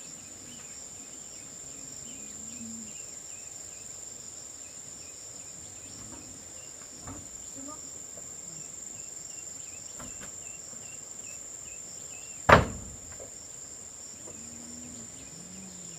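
Steady high-pitched drone of insects such as crickets, with one sharp knock about twelve seconds in.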